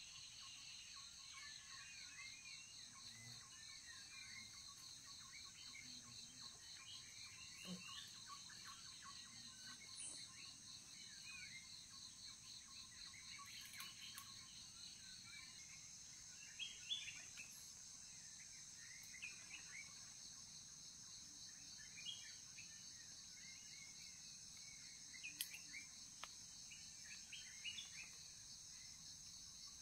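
Faint forest ambience: a steady high insect chirring with a fast pulsing layer that drops out about halfway through, and scattered bird chirps throughout, with a few faint clicks.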